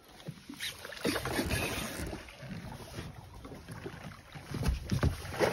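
Water splashing irregularly beside a small boat as a hooked barramundi is brought to a landing net, with wind buffeting the microphone.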